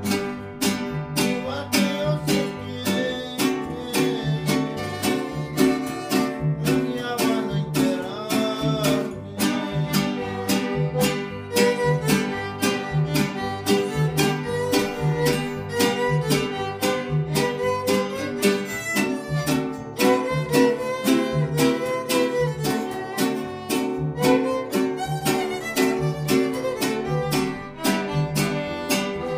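Instrumental passage of a string band: strummed guitars keep a steady, even beat while a violin plays the melody over them.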